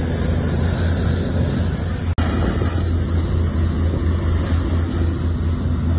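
Steady low engine drone and rushing water noise aboard the Marina Batam 2 high-speed passenger ferry under way. The sound briefly cuts out about two seconds in, then carries on unchanged.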